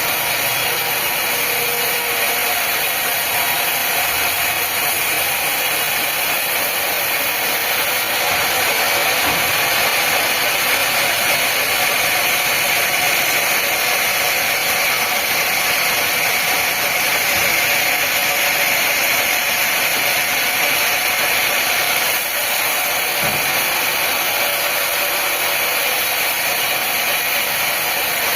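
Steady, unbroken whirring noise of a woodworking power tool or machine running.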